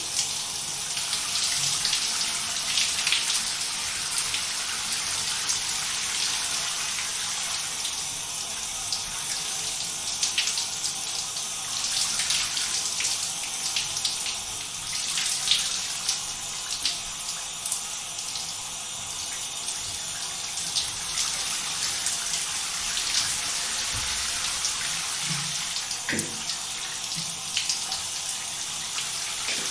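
Shower running: a steady hiss of spraying water with irregular splatters.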